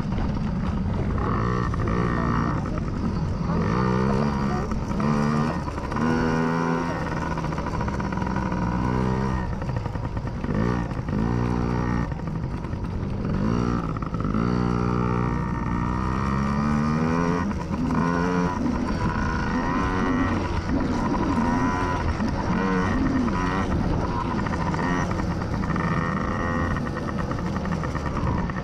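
Several small 50cc dirt-bike engines revving up and down over and over as they race, their pitches rising and falling and overlapping, over a steady low engine drone.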